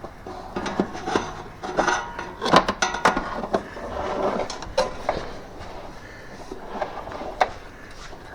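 A shifter cable being pushed through under the car's carpet: an irregular string of clicks, light knocks and scraping.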